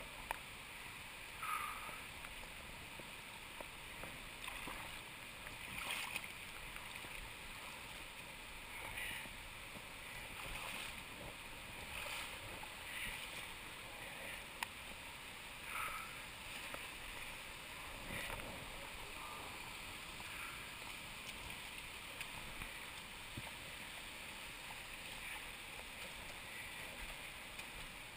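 Steady rush of flowing river water, with a few short splashes scattered through it.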